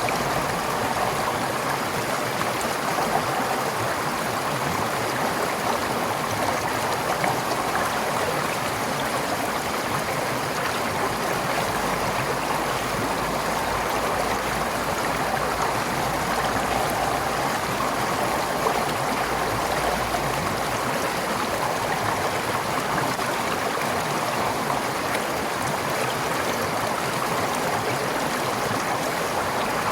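A forest stream flowing: a steady rushing and gurgling of water over stones.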